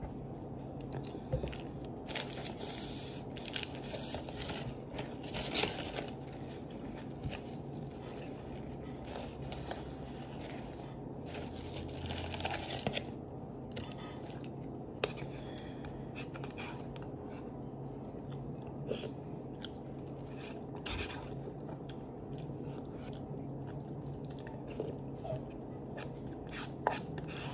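Close-up eating and drinking sounds: chewing, sips, and a plastic spoon scraping and tapping in a paper cup of broccoli cheddar soup. These come as scattered short clicks and rustles over a steady background hum.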